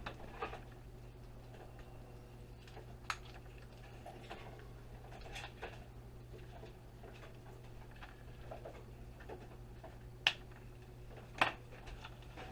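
Scattered small clicks and taps as a space heater's small tip-over safety switch is pried open by hand, with two sharper clicks near the end.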